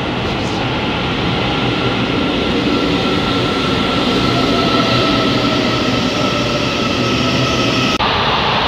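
Electric passenger train running along an underground station platform: a loud, steady rumble of wheels on rail with a steady high whine over it. About eight seconds in the sound changes abruptly to a duller rumble as another train approaches.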